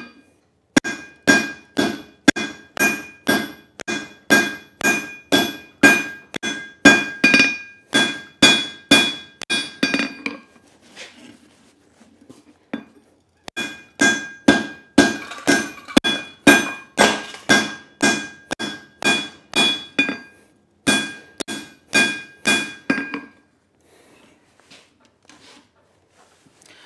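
Hand hammer striking a handled top tool set on red-hot leaf-spring steel over an anvil, forging a shoulder. About two blows a second, each with a bright metallic ring, in three runs broken by short pauses near the middle and after about twenty seconds.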